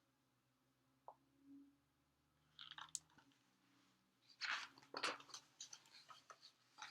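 Faint rustling and crackling of a picture book's paper pages being handled and turned. There are a few soft crackles near the middle and a louder cluster of rustling in the second half.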